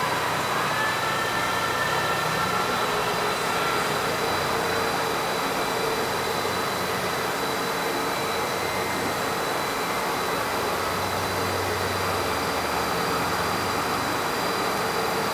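KOMO VR508 Mach II CNC router running: a steady rushing machine noise with a constant high whine, and faint rising and falling tones in the first few seconds.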